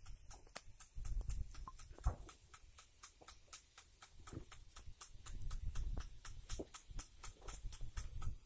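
Impact-type rain gun sprinkler spraying, its swing arm clacking against the water jet in a fast, even rhythm of about four clicks a second, over the low rumble of wind on the microphone.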